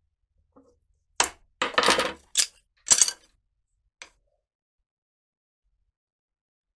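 Toasted bamboo cane being split lengthwise with a knife, with sharp cracking and clattering as the strips part and hit the wooden workbench, a string of clicks for about two seconds starting about a second in, then one small click.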